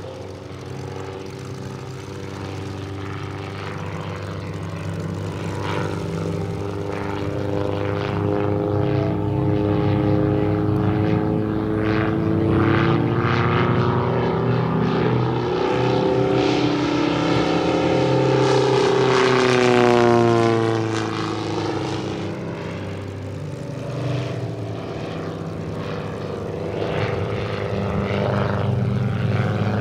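Seven-cylinder 800cc radial engine (VM R7-800) of a giant-scale RC Stearman PT-17 biplane running in flight, its pitch shifting through the manoeuvres. It grows louder to a close pass about two-thirds through, where the pitch drops, then builds again near the end.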